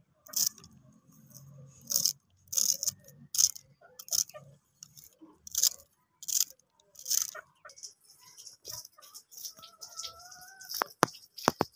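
Kitchen knife slicing through a bunch of fresh coriander held in the hand, each cut a short crisp crunch, in an irregular run of strokes. A few sharp clicks come near the end.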